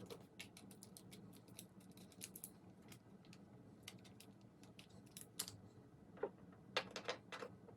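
Faint, irregular small clicks and ticks from hands handling and turning small robot parts, with a few sharper ticks in the second half.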